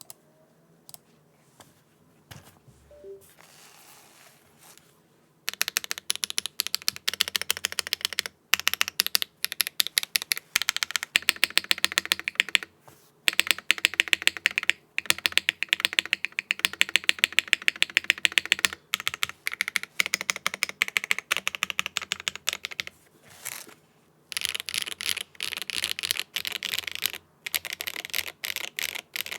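Zoom 75 mechanical keyboard with HMX Xinhai linear switches on an aluminium plate and flex-cut PCB, with no foam inside, being typed on. A few single key clicks, then from about five seconds in a fast, continuous run of keystrokes broken by brief pauses. Without foam the uploader finds it quieter and thinner-sounding.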